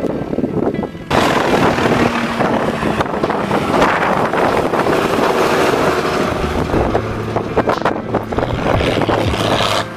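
Fordson Major tractor engine running as it drives by close on the road, under heavy wind buffeting on the microphone. The sound jumps louder about a second in.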